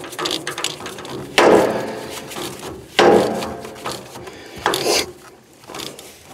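A metal fuel oil filter housing being tightened down by hand on its centre bolt: three sharp metallic knocks with a ringing tail, about a second and a half apart, between quieter rubbing and clicking of the parts.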